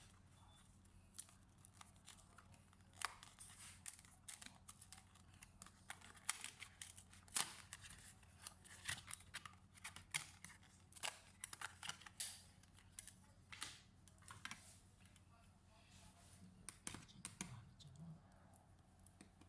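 Irregular small clicks and taps of laptop parts being handled during a RAM and SSD upgrade, over a faint steady low hum.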